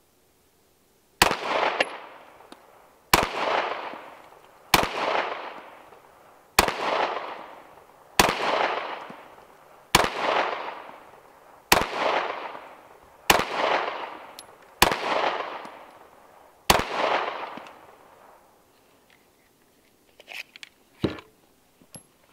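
Ten shots from a 9mm Glock 19 Gen 3 pistol, fired slowly at about one every one and a half to two seconds, each shot followed by a decaying echo, emptying a ten-round magazine. A few light clicks near the end.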